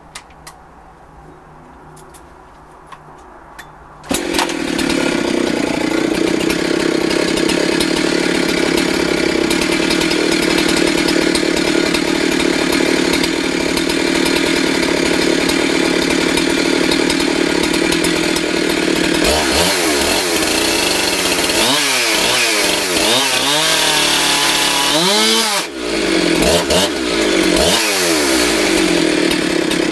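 Husqvarna 372 XP two-stroke chainsaw: a few faint clicks, then the engine comes in abruptly about four seconds in and runs steadily. In the second half it is revved up and down repeatedly, with a brief drop near the end.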